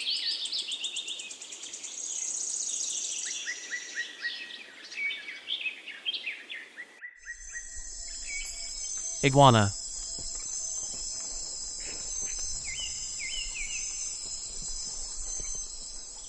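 Outdoor nature ambience. For about the first seven seconds, birds sing quick chirps and trills. It then cuts to a steady high insect drone over a low rumble, with a few short chirps.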